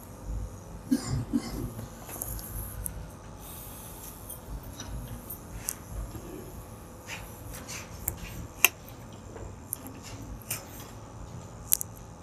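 Small handling noises: the pages of a book being turned and a plastic water bottle picked up, with scattered knocks and clicks. The sharpest are two clicks, one about two-thirds of the way through and one near the end.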